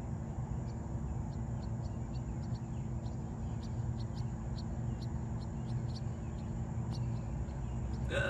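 Outdoor ambience: a steady low rumble with short, high chirps of small birds scattered through it, a few a second.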